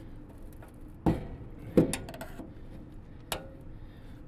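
Three sharp metal knocks from inside a Lennox gas furnace cabinet as a wedged heat exchanger is jostled on its slide rails, the second knock the loudest.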